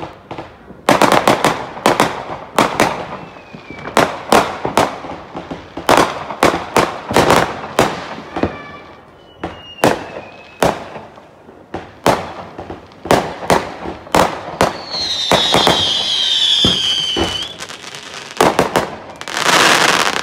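New Year's fireworks: a rapid, irregular barrage of loud rocket and firecracker bangs, often several close together. About fifteen seconds in, a whistling firework gives a falling whistle lasting a couple of seconds, and near the end comes a loud burst about a second long.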